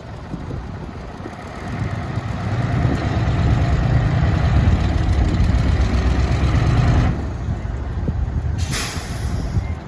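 Heavy diesel engine revving up about a second and a half in and running hard under load for several seconds, then easing off. A short burst of air hiss follows near the end.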